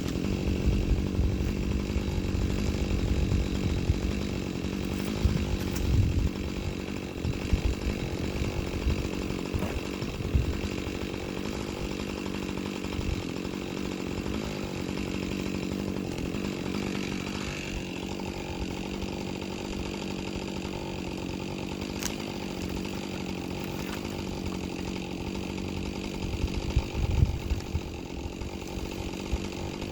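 Husqvarna 545 Mark II two-stroke chainsaw running steadily while cutting dead ash wood, with a few brief louder surges about six seconds in and near the end.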